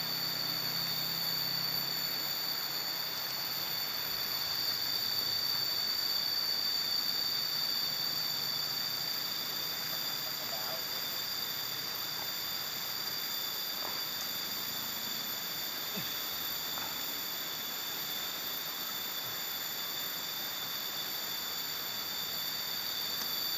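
Steady insect chorus: a constant high-pitched shrill of several tones over a hiss, with a few faint ticks in the middle.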